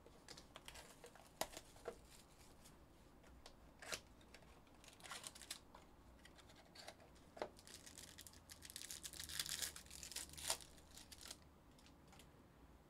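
Faint tearing and crinkling of a trading-card box and its pack packaging being opened by hand, with a few sharp clicks and a longer rustling stretch about eight to eleven seconds in.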